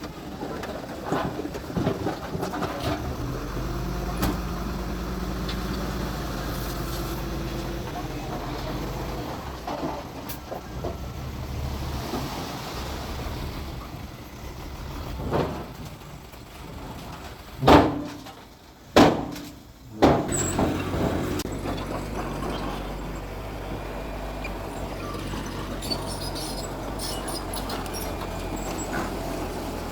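Heavy diesel engine of earthmoving machinery running steadily. Three loud, sharp bangs come in quick succession a little past the middle.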